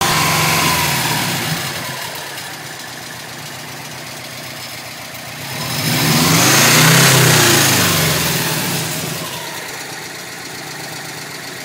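Subaru Legacy GT's turbocharged flat-four engine, heard from underneath the car, easing down to idle, then revved once about five and a half seconds in and dropping back to idle. No thumping noise can be picked out over the engine.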